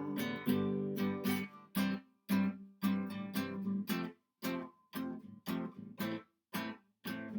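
Acoustic guitar strumming chords in short, choppy strokes, about two a second, each cut off quickly.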